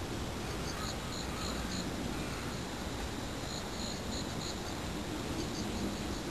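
Night outdoor ambience: an insect chirping in short, evenly spaced pulses, a few a second in loose runs, over a steady low background rumble.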